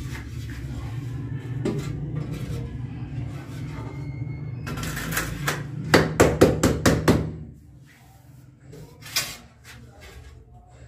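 A ceramic wall tile being tapped into its adhesive bed, a quick run of about eight sharp knocks around the middle, with a single knock later. A steady low hum sounds under the first part and stops after the taps.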